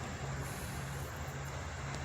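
A vehicle engine running steadily: a low, even drone with no knocks or bangs.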